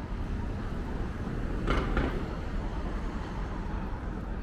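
City street ambience: a steady low traffic rumble, with a brief louder noise about two seconds in.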